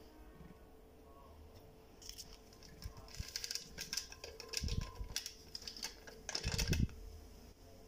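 A small paper sachet crinkling and rustling in the hand as powder is shaken out of it into a glass blender jar. Irregular clicks come with it, and two dull knocks, the louder one near the end.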